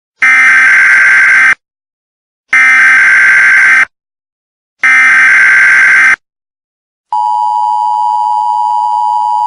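Emergency Alert System SAME header: three loud bursts of digital data tones, each just over a second long with short gaps between. About seven seconds in, the steady two-tone EAS attention signal begins, the alarm that comes before a spoken emergency message.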